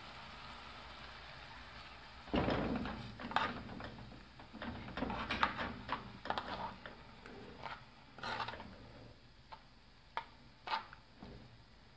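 Garlic butter and shrimp frying in a pan. About two seconds in, lemon juice is poured in and the frying gets suddenly louder, then a metal spoon scrapes and clinks against the pan as the shrimp are stirred.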